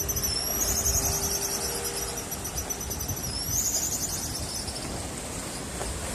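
Guillemot giving a high-pitched, rapidly trilling whistle call that dips and rises in pitch, stopping about four seconds in, over a low background rumble.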